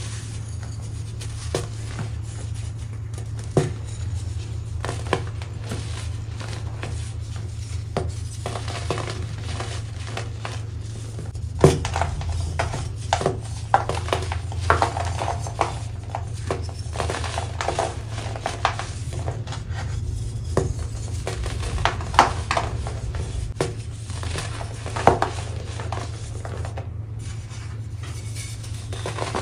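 Pressed baking soda crunching and crumbling as hands squeeze and break it apart: a run of dry, sharp crackles, with a few louder cracks in the second half.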